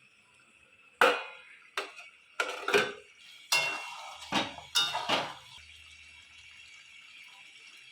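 A cooking utensil knocking and scraping against the cooking pan, about six sharp strokes in the first five seconds, while kasuri methi (dried fenugreek leaves) is added to the finished curd chicken and stirred in; after that only a faint steady hiss.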